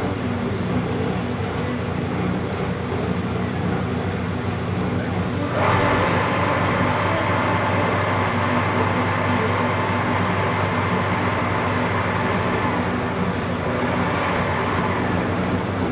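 Metal lathe running steadily with a low motor and gear hum. About six seconds in, a brighter, noisier sound comes in suddenly and holds as the tool takes a thread clean-up cut in cast iron.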